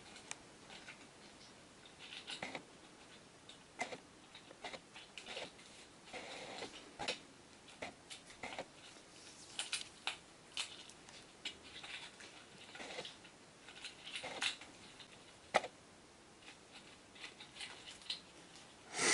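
Faint, irregular clicks, scrapes and rustles of plastic fittings being handled in a Roman blind's top rail as its bushing is moved to the opposite end, with one sharper click about three-quarters of the way through.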